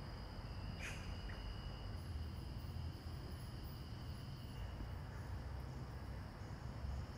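Crickets trilling steadily as two unbroken high-pitched tones over a low background rumble, with one brief high call about a second in.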